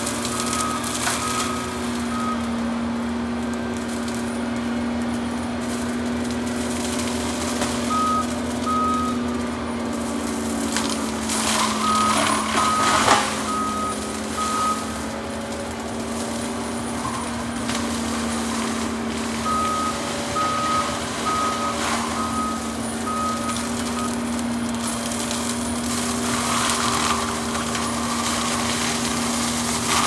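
A John Deere 333G tracked skid steer with a mulcher head runs at steady revs while its backup alarm beeps about twice a second, in several separate spells as it reverses. Now and then brush cracks and crunches under the machine, most sharply around the middle.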